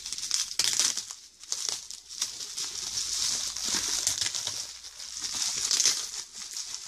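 Bubble wrap crinkling and rustling as it is handled and pulled off a packed comic book, with irregular small crackles.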